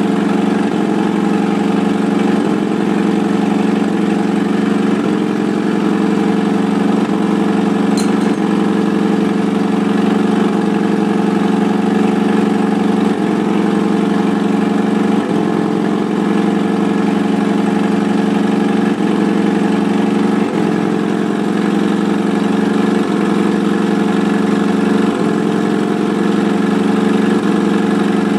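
Honda CRX Si's four-cylinder engine idling steadily on its first start, with a slight regular waver in its note about every two and a half seconds.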